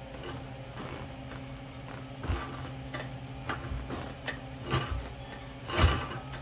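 Kick-starter of a 2001 Honda XR70R being pushed through by hand, turning the single-cylinder engine over with a series of irregular clunks, the loudest near the end. The engine does not catch and run.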